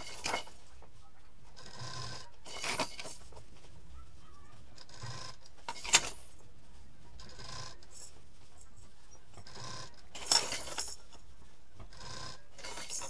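Plastic baby rattles and teether toys attached to a quilted fabric pillow knock and rattle against each other and the table as the pillow is handled, along with fabric rubbing. There are a few scattered clatters, the sharpest about six seconds and ten seconds in.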